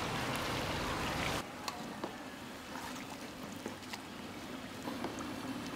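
A steady hiss that cuts off sharply about a second and a half in, then a spoon stirring thick batter in a metal pot, with light scattered clicks of the spoon against the pot.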